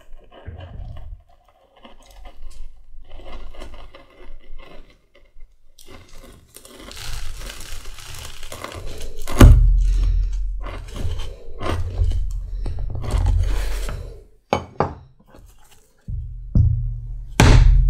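Round knife slicing through leather on a plastic cutting board: scraping cuts with knocks of the blade and leather against the board. Near the end, a rawhide mallet strikes a punch through the leather.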